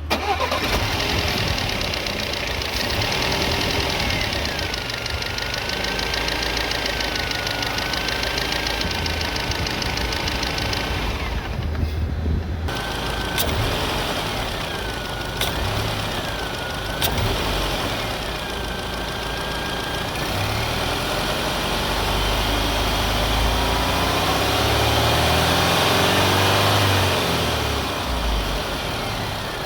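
Audi/VW 1.8 TFSI turbo four-cylinder engine idling with a rapid metallic clacking that the owner cannot explain and is worried about. The engine gets louder and its pitch rises in the last several seconds.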